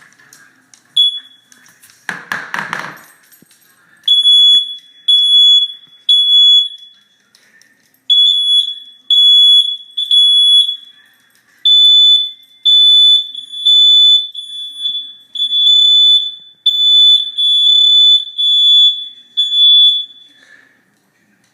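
Household smoke alarms going off on test with loud, high-pitched piezo beeps: one beep, a brief noise, then the three-beep-and-pause temporal pattern of a smoke alarm evacuation signal twice, followed by a longer run of beeps before they stop.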